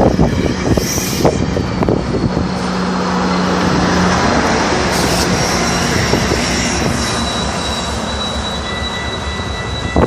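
GO Transit bilevel commuter train rolling by, a steady rumble of wheels and cars with a low steady hum for a few seconds. Thin high-pitched tones come in near the end.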